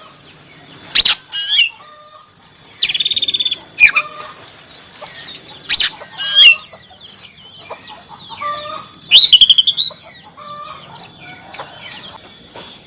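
Oriental magpie-robin singing: loud, harsh rattling bursts every second or few, with quieter whistled and warbling notes in between.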